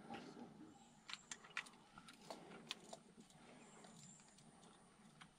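Near silence with faint, scattered small clicks and light metal jingling from fishing tackle being handled: a lip-grip scale and a lure's hooks.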